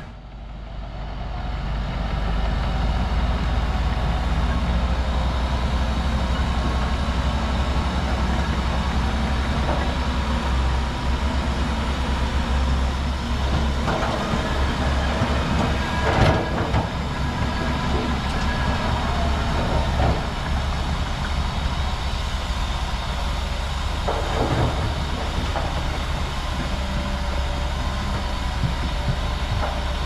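Heavy diesel earthmoving machine running steadily under load, with a few short metallic clanks about halfway through and again later; the sound fades in over the first two seconds.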